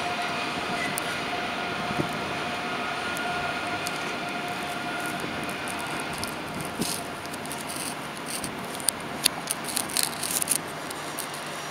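Electric train running with a steady whine over a rumble, the whine fading away over the first half. Scattered sharp clicks and ticks follow in the second half.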